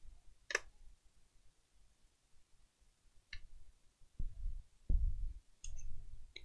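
Handling noise from laptop reassembly: a few sharp small clicks of the plastic top cover and a small screwdriver, and from about four seconds in, several dull low bumps.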